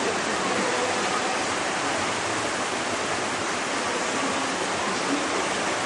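Steady rush of powerful whitewater rapids, an even wash of water noise.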